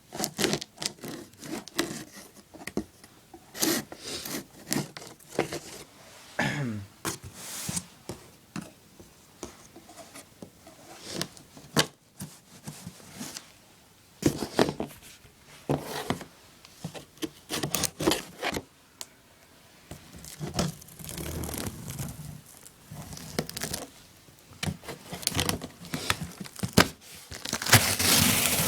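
A cardboard box and its packaging being handled and opened: irregular scraping, rustling and tearing, with scattered clicks and knocks, getting louder near the end.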